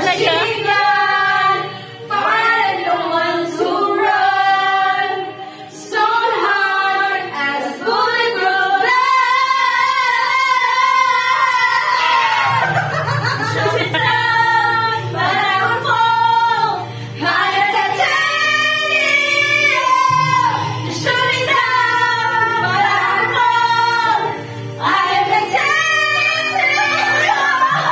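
Music with a woman's singing voice over a bass line, playing loudly throughout; the bass comes in stronger about halfway through.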